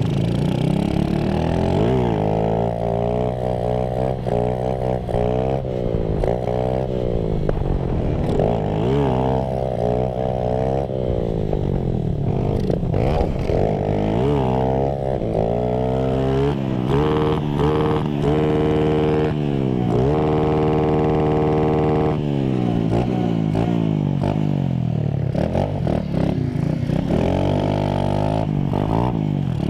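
Small motorcycle engine being ridden hard, its revs climbing and dropping again and again as the rider accelerates and changes gear. It holds a steady high pitch for a few seconds around two-thirds of the way through.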